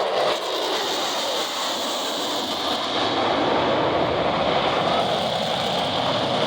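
F-16 fighter jet's engine roaring loudly and steadily as it flies a demonstration pass.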